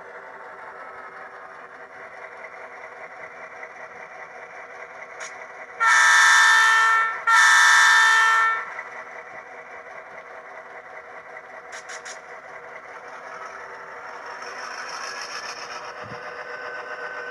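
Model-train sound decoder in an HO-scale Victorian Railways B-class diesel playing a steady diesel engine sound through its small speaker, with two horn blasts of about a second each, six and seven seconds in. The engine sound grows a little louder near the end as the model gets moving.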